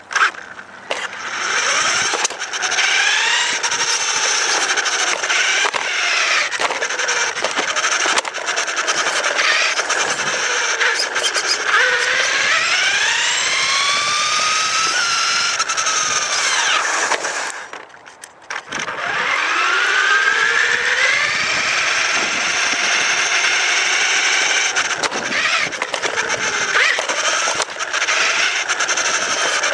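Traxxas Rustler VXL RC car's brushless electric motor whining, its pitch rising and falling as the throttle is worked, heard from a camera mounted on the car, with rattling knocks from the chassis over bumps. The whine drops away briefly about two-thirds of the way through and then picks up again.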